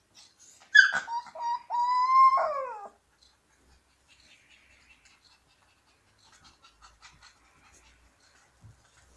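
Siberian husky puppy howling: one high howl, about two seconds long, that starts with a yelp-like rise, holds steady, then slides down at the end.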